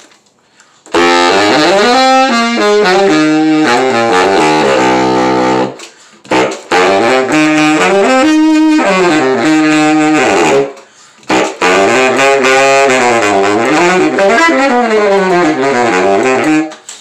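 H. Couf low A baritone saxophone, German-made in 1973, played through a metal Otto Link Super Tone Master mouthpiece: three short melodic phrases of quick runs and held notes with brief breaks between them. The reed has not been wetted, which the player says is why it sounds weird.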